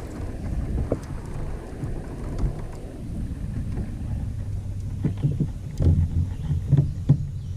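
Low, steady rumble around a small fishing boat on the water, with a few sharp knocks in the second half.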